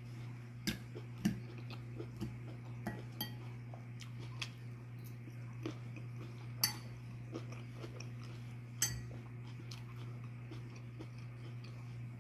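A metal fork clinking and scraping against a ceramic salad bowl, a handful of sharp clinks spread apart, with chewing in between. A steady low hum runs underneath.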